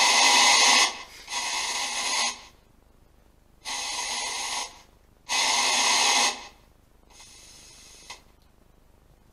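A spirit box sweeping radio stations, giving bursts of radio static: five hissing bursts of about a second each, separated by short silences. The first and fourth bursts are the loudest and the last is faint.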